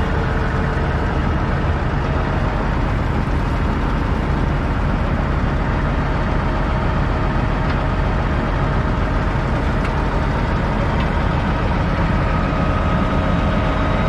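Heavy diesel vehicle engine running steadily under load, a constant loud drone with faint steady whining tones over it.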